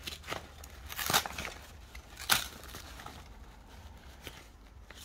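Paper packaging being handled and opened: a few scattered crinkles and rustles, with the sharpest, loudest crackle about two seconds in.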